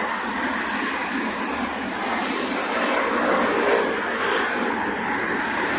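Steady hum of city road traffic, with cars passing on the roads around the bridge.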